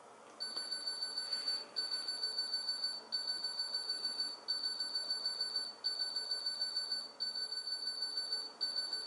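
A high, fluttering electronic tone from the silicon-transistor rebuild of the Wireless World serial computer as it runs a multiplication. It starts just after Start is pressed and comes in stretches of about a second and a quarter, with short breaks between them.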